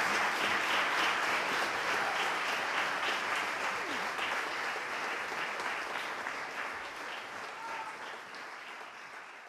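Concert audience applauding, the clapping slowly fading away.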